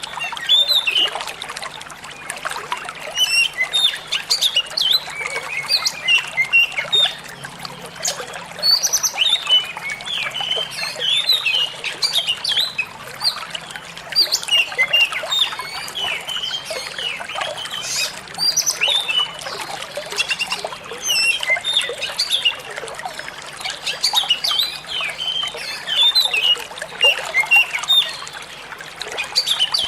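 An oriental magpie-robin singing busily, a rapid run of varied chirps and whistles, over the steady trickle of running water.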